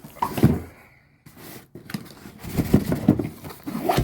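Soundbar packaging being handled while it is unboxed: irregular scrapes, rustles and knocks of the box and its contents, busiest near the end.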